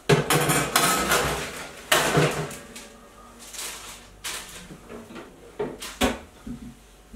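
Oven door opened and a metal baking tray slid in, clattering on the rack for the first couple of seconds. A few separate knocks and clicks follow as the oven door and controls are handled.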